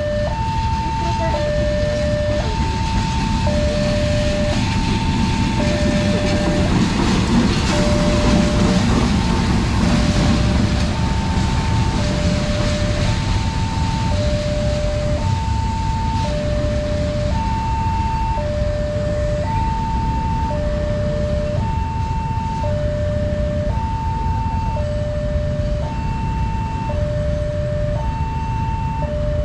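Railway level-crossing alarm sounding a repeating two-tone electronic chime, a high and a low tone alternating about once a second. Under it is the low rumble of a diesel locomotive shunting, which swells about a third of the way in.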